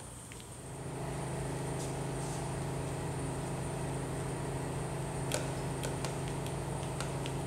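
A steady low machine hum starts about a second in and holds even, with a few light clicks from a metal bracket being handled.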